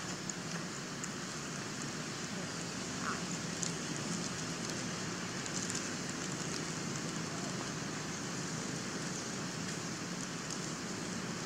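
Steady outdoor background hiss with faint scattered crackling ticks.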